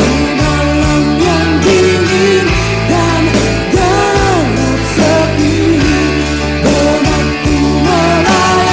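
Rock band recording playing: drums, bass and guitars carrying a melody that bends in pitch.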